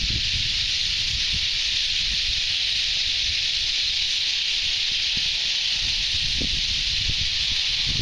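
A large flock of birds calling all at once, a steady, dense, high hissing din with no single call standing out, over a low rumble.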